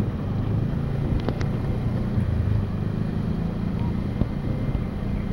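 Motorcycle engine running steadily while riding along, heard from the bike itself, with some wind on the microphone.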